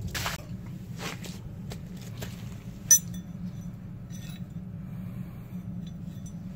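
Water splashing from a ladle onto wet ground for the first second or so, then a single sharp metallic clink just before the midpoint as a steel combination spanner is set down on a steel plate, followed by a few lighter clinks as it is moved. A steady low hum runs underneath.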